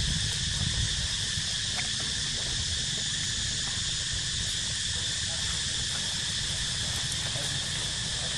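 A steady chorus of insects, a continuous high buzz, with a low rumble of wind on the microphone underneath.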